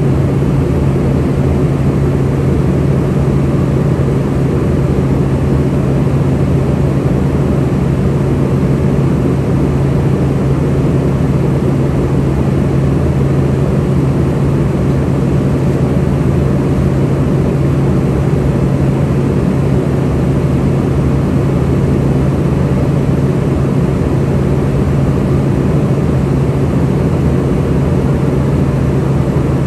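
Steady in-flight noise inside an Embraer ERJ145 in cruise: the whoosh of airflow and the drone of its Rolls-Royce AE 3007 turbofans, with a steady low hum throughout.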